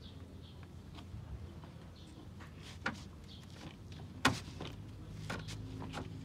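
A few small clicks and knocks as a child handles a parked golf cart's dashboard and seat, with one sharp, loud knock a little over four seconds in.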